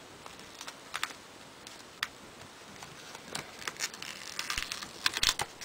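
Scattered small clicks, taps and scratchy rustles of fingers handling a PSP and peeling and pressing small adhesive vinyl skin pieces around its buttons, busier in the second half.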